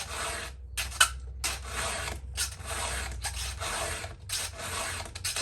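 Hand file rasping across the teeth of a new chainsaw chain during its first filing: repeated push strokes, roughly one every half to three-quarters of a second, with short pauses between.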